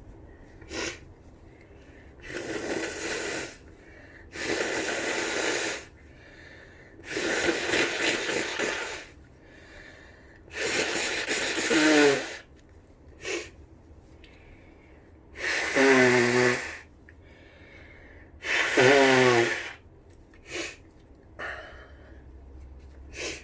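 A person with the flu blowing their congested nose hard, six long blasts of a second or two each. The later ones end in a falling, honking sound. Short sniffs come in between.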